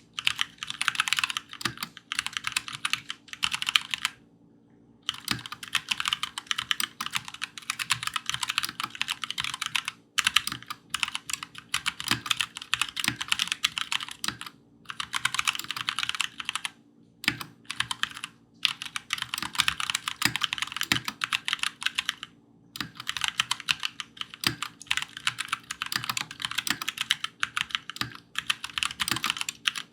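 COX CK87 mechanical keyboard with Gateron Brown tactile switches being typed on quickly: dense runs of keystrokes lasting a few seconds each, broken by short pauses.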